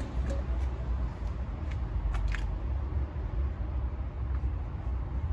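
Steady low outdoor rumble, with a few light clicks about two seconds in.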